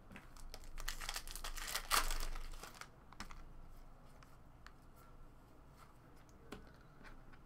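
Foil wrapper of a trading-card pack crinkling and tearing as it is ripped open, loudest about two seconds in, followed by faint ticks of the cards being handled.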